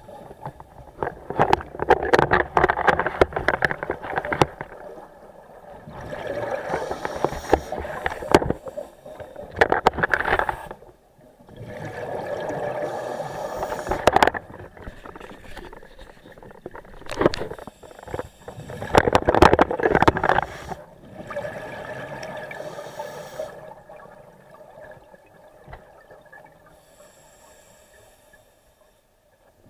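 A scuba diver breathing through a regulator underwater: bursts of crackling, gurgling exhaled bubbles come three times, with steadier hissing breaths between them, and the breathing grows quieter near the end.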